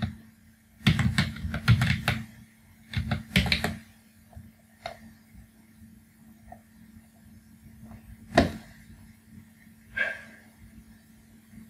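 Typing on a computer keyboard: two quick bursts of keystrokes, then a single sharp click later on.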